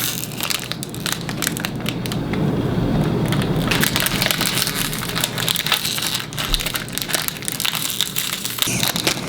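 Plastic toy packaging crinkling and crackling with many sharp clicks as a small wrapped accessory bag is cut open with scissors and handled.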